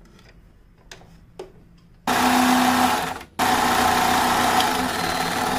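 Allure electric sewing machine stitching a seam. After a few light clicks, the machine starts running about two seconds in, stops for a moment a second later, and then runs again until near the end.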